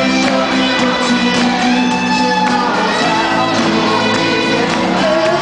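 Rock band playing live through an arena PA, with bass guitar, electric guitar and drums, picked up from the crowd with the hall's echo.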